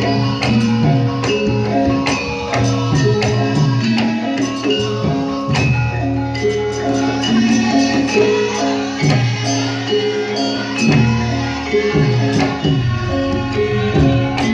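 Live folk music from a percussion ensemble: hand drums and jingling percussion keep a steady beat under pitched mallet-struck notes.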